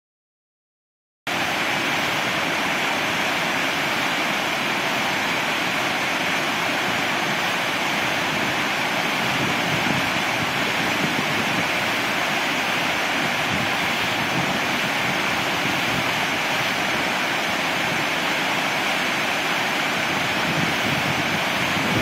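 Broad waterfall pouring over rock ledges into a churning pool: a steady, dense rush of falling water that starts about a second in.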